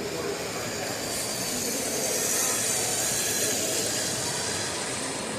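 A LEGO train rolling past on plastic track: a high hiss that swells for about three seconds and fades, over steady background noise.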